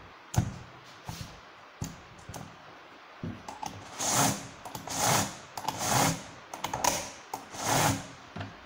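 Chain of a Husqvarna 365 chainsaw being pulled by hand around its guide bar: five short, noisy rattling strokes about a second apart, after a few light clicks of handling on the table.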